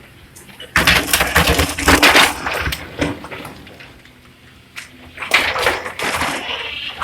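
Loose stone crashing and clattering as an excavator bucket handles it, in two rough spells of rattling impacts about four seconds apart, over the faint low hum of the machine's engine.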